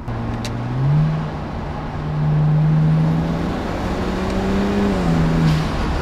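BMW E92 335i's twin-turbo straight-six pulling hard under acceleration, heard from inside the cabin. The engine note steps up about a second in, climbs a little further, then falls back near the end as the revs drop.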